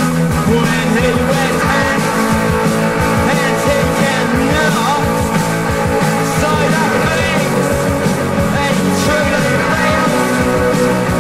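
Punk rock recording playing continuously: a dense band mix with regular drum hits and a singing voice.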